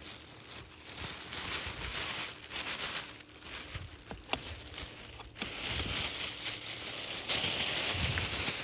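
Plastic bag crinkling and rustling as it is handled, with a couple of sharp clicks about four seconds in.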